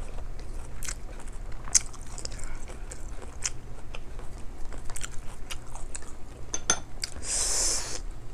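Close-up mouth sounds of someone eating rice by hand: chewing with scattered wet clicks and smacks over a low steady hum, and a brief hiss near the end.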